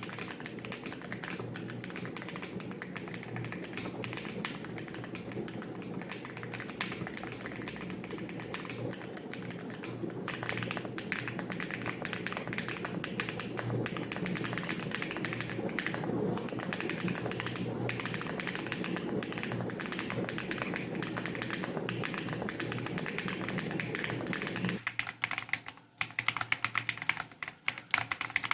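Mechanical keyboard being typed on in quick, continuous keystrokes over a low steady hum. About 25 seconds in the hum stops and the typing turns crisper and louder, with keystrokes more spread out, as a different board's sound test begins.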